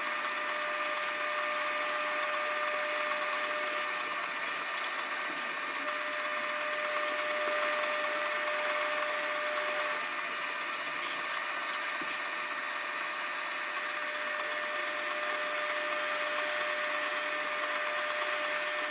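Metal lathe running steadily with a constant whine while a twist drill in the tailstock chuck bores into the spinning metal bar, cutting off curled chips.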